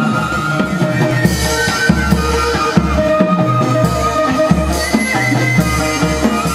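Vietnamese chầu văn ritual music: an instrumental ensemble with drums keeping a steady beat under repeated low notes and a sustained melodic line.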